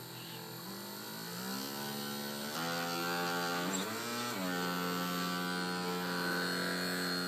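Electric sewing machine motor running with a humming whine. It speeds up gradually from about a second in and jumps higher partway through. It dips briefly near the middle, then comes back up and holds steady at the higher speed.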